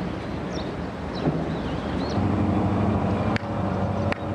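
Small birds chirping in quick, falling calls, then about halfway a steady low engine hum sets in and carries on, typical of a boat's engine idling. Two sharp clicks come near the end.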